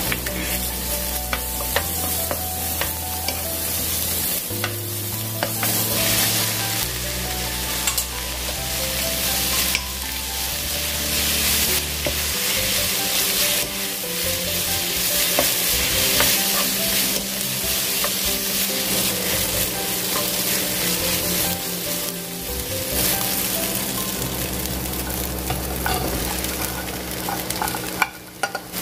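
Sliced green onion, garlic and strips of Korean fish cake (eomuk) sizzling steadily in olive oil in a nonstick frying pan as they are stirred with a wooden spatula. Near the end shredded cabbage is tipped in from a plate.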